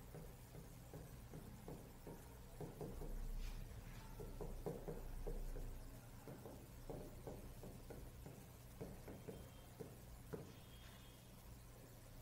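Chalk tapping and scraping on a blackboard as words are written: faint, irregular ticks over a steady low hum, with a low rumble for a couple of seconds in the middle.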